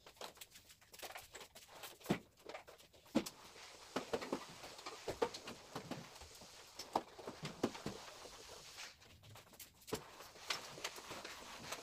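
Irregular light taps, knocks and shuffles of someone moving about a room and handling things while cleaning.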